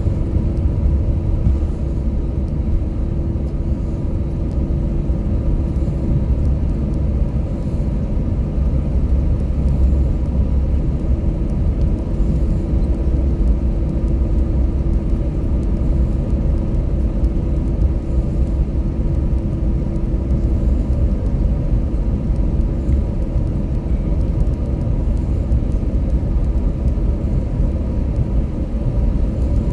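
Cabin noise of an Airbus A321-200 airliner with its engines running: a loud, steady low rumble with a faint hum that fades about two-thirds of the way through.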